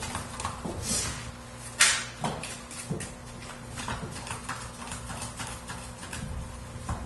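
Playing cards being dealt one by one onto a table into piles: a run of light, irregular taps and flicks, with a louder brushing snap about two seconds in.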